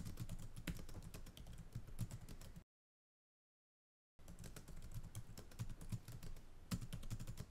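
Computer-keyboard typing sound effect: rapid keystrokes in two runs, one of about two and a half seconds and one of about three and a half, with dead silence between them. Each run types out one line of on-screen text.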